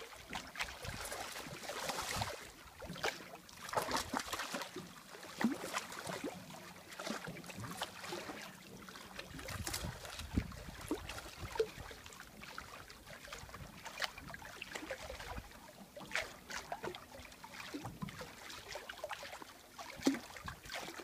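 Lake water splashing at the edge of a rock shore as a hooked northern pike thrashes and is landed by hand, with irregular sharp splashes over small waves lapping.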